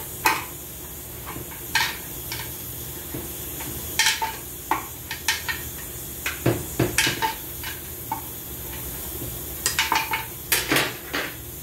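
Hand tools clinking and scraping against metal parts inside an automatic transmission case: scattered irregular metallic clicks, with a couple of duller knocks about halfway through, over a steady hiss.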